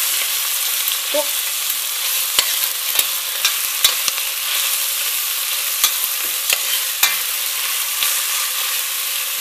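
Ground beef and chopped onions sizzling as they brown in a stainless steel pot, with a metal spoon scraping and clinking against the pot as they are stirred. The clinks come irregularly, about every half second to a second, over the steady sizzle.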